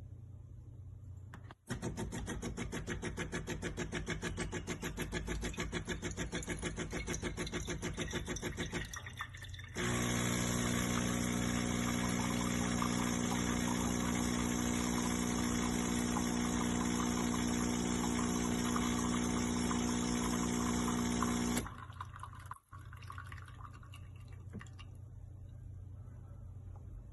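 Espresso machine pumping water: the pump pulses rapidly for about seven seconds, then runs steadily with a hum for about twelve seconds and stops.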